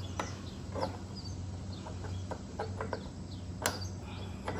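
Scattered light clicks and taps of a carriage bolt being worked against the wheel's bushing while lining it up to push it through, with one sharper click near the end. Birds chirp faintly in the background.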